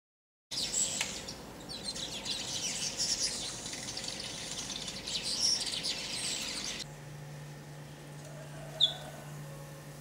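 Village weavers chattering, a dense run of high chirps and buzzy notes that starts suddenly and cuts off about seven seconds in. Then a low steady hum and one short, sharp bird chirp near the end.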